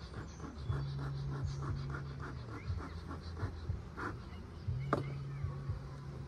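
Honeybees from a crowded, open hive buzzing in a low hum that comes and goes. Over the first few seconds there is a fast run of soft ticks, about five a second, and there are two sharp clicks about four and five seconds in.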